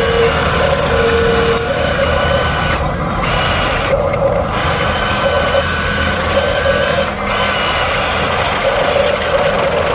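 Huina RC bulldozer's small electric drive motors and gearbox whining steadily as the toy runs, the whine stepping up and down a little in pitch as the motors change speed.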